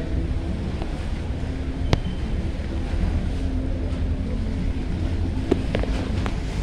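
Steady low rumble and hum of a boat engine on the harbour, with some wind on the microphone and a sharp click about two seconds in.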